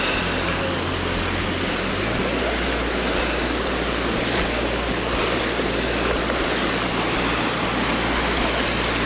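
Mountain creek rushing steadily over rocks.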